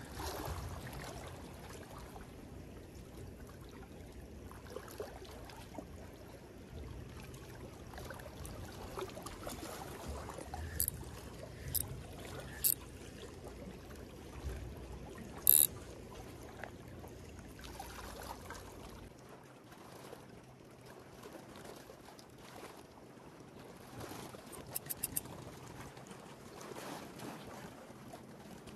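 Faint sea water lapping and trickling among concrete breakwater blocks, with a few sharp clicks in the middle and a quick run of ticks later on.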